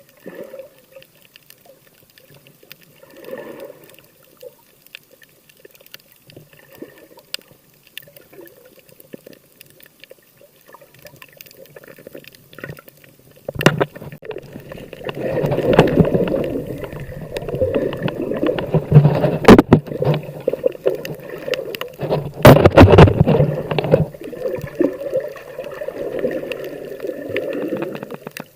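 Water sloshing and gurgling close to the microphone. It is faint at first, then loud and choppy from about halfway through, with a few sharp knocks.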